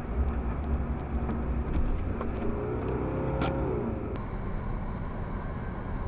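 Engine and road rumble inside a moving car, recorded through a dashcam microphone. The sound changes abruptly about four seconds in to another car's in-cabin rumble.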